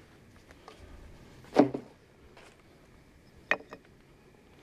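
A few short knocks from gear being handled: the loudest about one and a half seconds in, and two smaller ones close together near the end.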